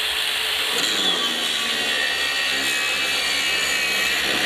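Makita angle grinder running with its disc pressed down hard into the work, a steady grinding noise with a motor whine that wavers under load. It is being forced toward a stall but keeps spinning.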